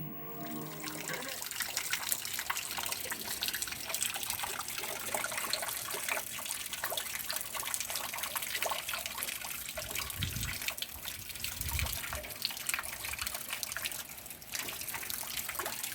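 Rain falling steadily, a continuous hiss of water full of small drips and patters.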